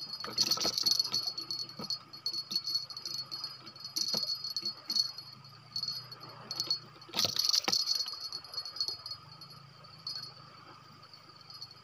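Night insects trilling steadily and high-pitched, with bursts of rattling and rustling as a freshly caught eel is handled: loudest just after the start and again around seven to eight seconds in.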